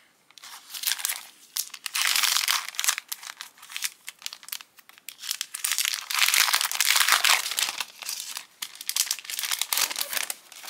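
Clear plastic packaging sleeve crinkling as it is handled and opened, in two main spells of crackling: a short one about two seconds in and a longer one from about six to eight seconds.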